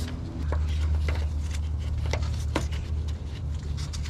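Scattered light clicks and scrapes of a screwdriver and gloved hands working at a hose clamp on a metal fuel line, a few irregular ticks over the whole stretch. Under them runs a steady low hum.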